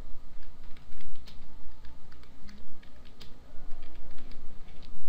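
Typing on a computer keyboard: irregular keystrokes, a few a second, over a steady low hum.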